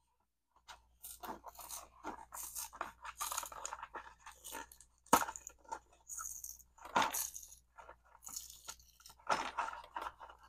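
A cardboard LEGO minifigure blind pack being torn and pried open by hand: irregular crinkling and tearing of card, with a few sharper snaps, the loudest about seven seconds in.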